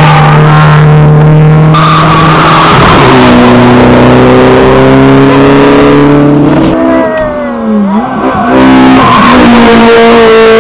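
Competition cars' engines revving hard on a hillclimb, loud and held high, the pitch climbing slowly in each gear and stepping at gear changes. Partway through the engine note drops and wavers with quick blips, then pulls up steadily again.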